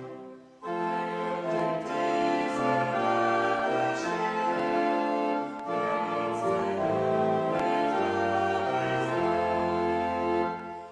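A man and a woman singing a church hymn in held notes, accompanied by pipe organ, with a brief break about half a second in before the next line begins.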